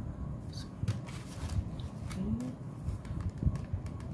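Paper envelopes and banknotes being handled on a table: scattered short paper rustles and light taps.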